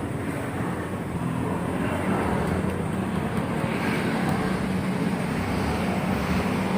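Steady running of a motor vehicle engine with traffic-like background noise, holding an even low hum.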